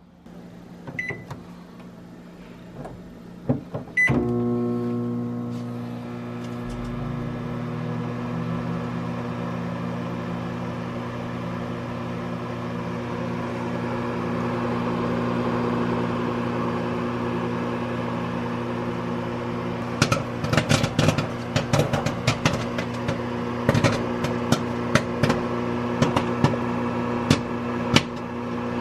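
Microwave oven: the door shuts with a click and the keypad beeps twice, then the oven runs with a steady electrical hum. About twenty seconds in, a bag of microwave popcorn inside starts popping, the sharp pops coming quicker and quicker.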